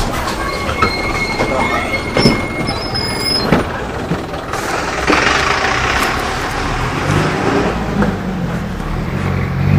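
Mercedes-Benz OF-1417 bus's OM-904LA four-cylinder turbodiesel running steadily, with knocks and rattles from the bus. A swell of hissing noise comes in about five seconds in and fades after a second or so.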